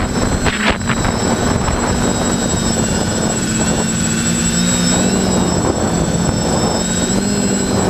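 Electric motors and propellers of a small radio-controlled FPV aircraft, heard through its onboard camera: a steady hum with a thin high whine that wavers in pitch, over rushing air.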